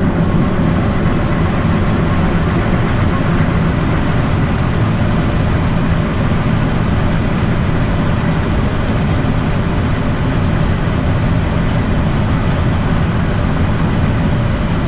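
Heavy diesel farm machinery running steadily at harvest: a loud, even engine drone with a strong low hum.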